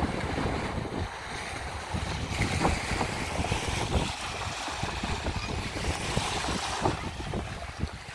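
Wind gusting across the microphone, with small sea waves washing onto the beach, the wash swelling for a few seconds in the middle.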